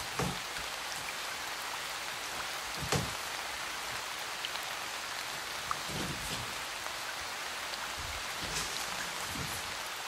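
Steady rain falling, an even hiss. A few soft knocks sit over it, the clearest about three seconds in.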